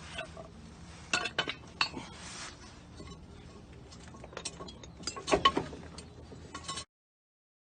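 Metal tools and parts clinking and clanking as they are handled and moved, in scattered knocks with the loudest cluster near the end, and a short hiss in the middle. The sound cuts off abruptly just before the end.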